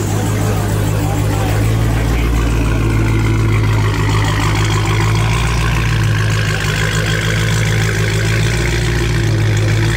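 Dodge Challenger SRT Hellcat's supercharged V8 idling steadily, with a meaty exhaust note.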